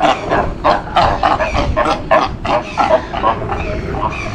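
Cape fur seals barking in a rapid run of short calls, about four to five a second.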